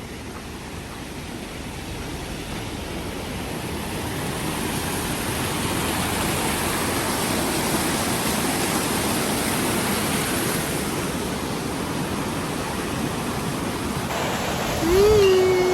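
Steady rush of falling water from a mountain stream or waterfall, growing louder over the first several seconds. Near the end a short pitched note, like a voice, cuts in briefly.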